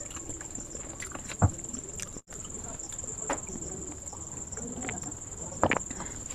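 Night insects trilling steadily at a high pitch, with two sharp knocks, one about a second and a half in and one near the end.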